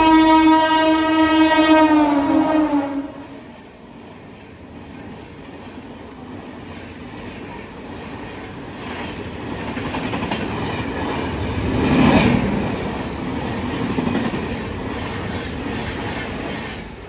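Electric locomotive horn sounding one long blast for about three seconds, its pitch sagging slightly as it ends. Then a train rolls by with wheels clacking over the rail joints, the sound swelling to its loudest about twelve seconds in and easing off.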